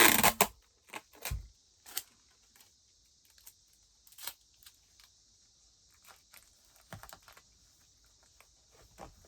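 Sticky tape pulled and torn from the roll in a short loud burst at the start, then scattered light rustles and taps of handling.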